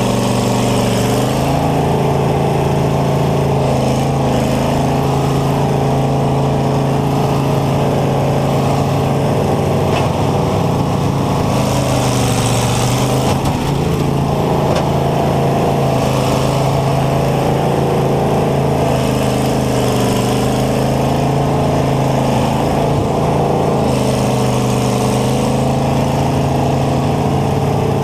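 Combine harvester's engine running loud and steady, heard close up from inside its cab, its pitch sagging and coming back up several times.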